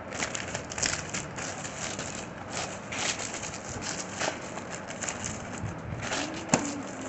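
Clear plastic packaging crinkling and rustling in irregular crackles as it is handled, with one sharp click a little over six seconds in.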